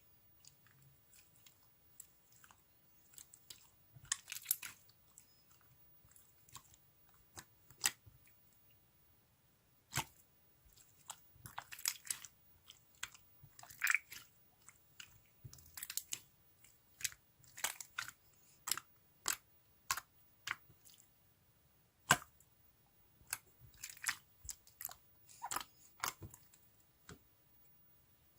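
Slime being squished and poked by hand: irregular sticky clicks, pops and crackles, some in quick clusters.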